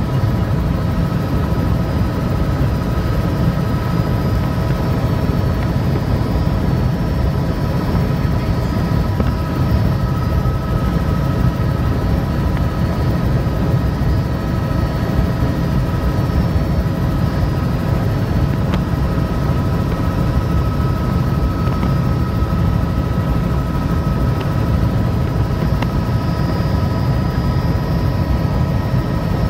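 Helicopter heard on board in flight: a steady, loud low drone of rotor and engine with a constant high whine over it.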